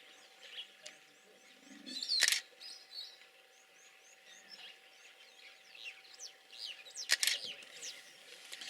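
Small birds chirping with many short, high calls, and two sharp clicks, one about two seconds in and one about seven seconds in.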